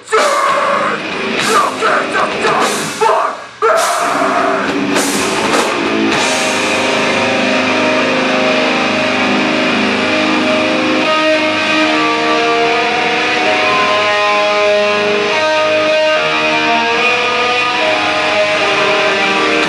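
Live heavy rock band playing loud: for about the first six seconds the band hits short stop-start accents together with brief gaps between them, then settles into sustained distorted guitar chords with drums.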